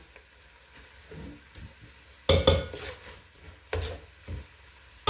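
Slotted metal spatula stirring food in a large metal cooking pot, clanking against the pot a few times, the loudest knock a little past two seconds in and two more near the end.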